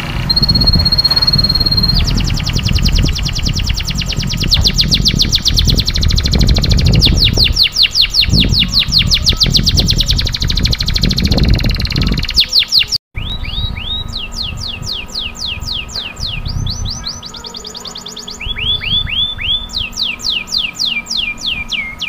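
Domestic canary singing in full song: a held high whistle, then long rapid rolls of repeated notes, dropping out briefly about 13 seconds in. A low rumble runs under the first half.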